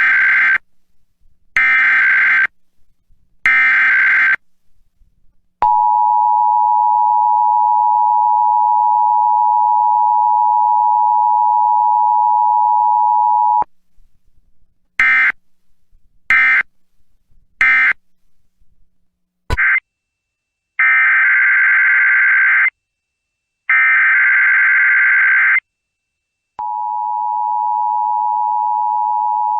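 Emergency Alert System required monthly test signals. Three harsh, buzzy SAME digital header bursts are followed by a steady attention tone lasting about eight seconds, then three short end-of-message bursts. A second alert's header bursts come next, and another steady attention tone starts near the end.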